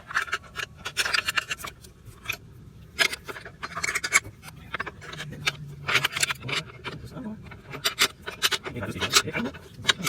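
Wrench working on steel bolts and nuts: irregular metallic clicks, clinks and scraping as the chain-adjuster bolts are tightened.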